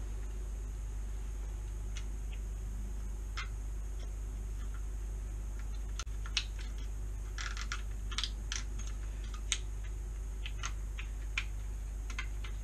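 Small scattered clicks and taps of plastic and metal as the spring-loaded carbon brushes are pressed into the plastic motor casing of a Miele vacuum, with a quick run of clicks just past halfway. A steady low hum sits underneath.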